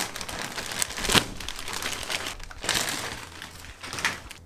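Thin plastic mailing bag crinkling and rustling as it is torn open by hand, with the loudest crackle about a second in and further crinkles near the end.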